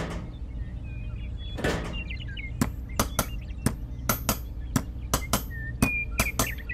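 About a dozen sharp, irregular knocks, roughly three a second, as a small red plastic pipe is pushed and tapped down into dry, packed soil as a miniature bridge pillar. Faint bird chirps sound between them.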